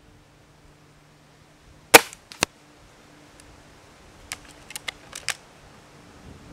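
Gamo Swarm Maxxim .22 break-barrel air rifle firing once with a sharp crack about two seconds in, then a second, quieter crack half a second later. A run of light metallic clicks follows as the barrel is broken open and cocked for the next shot.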